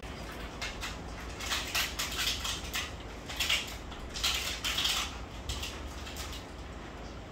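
Water splashing and sloshing in a church baptistery tank as a person steps down into it, in irregular bursts with scattered knocks.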